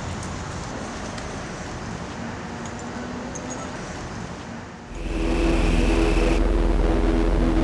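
Steady street-traffic ambience, then about five seconds in a louder steady hum with a low rumble and hiss.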